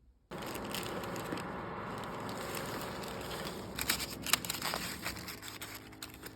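Crinkling, rustling handling noise that starts suddenly, with a few sharp clicks about four seconds in.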